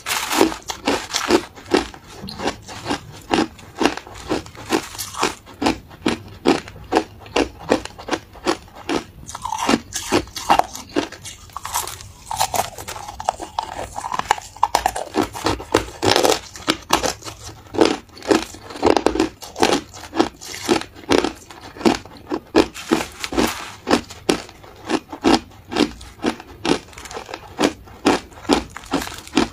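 A person chewing mouthfuls of crushed ice: steady, crisp crunching, about two crunches a second.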